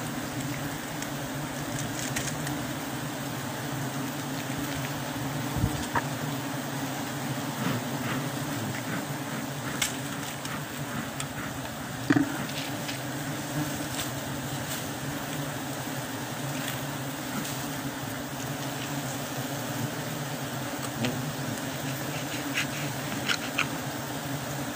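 A swarm of honeybees buzzing around an exposed wild honeycomb: a steady, even drone, with a few faint clicks and a sharper knock about twelve seconds in.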